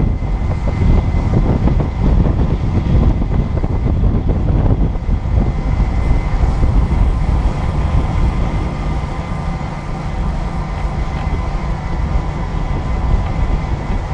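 Boat motor running steadily, a low rumble with a thin steady whine over it, and wind rushing over the microphone.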